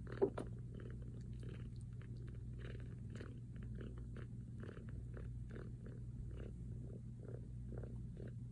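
A very young kitten making soft repeated sounds, about two or three a second, over a steady low hum, with one brief squeak just after the start.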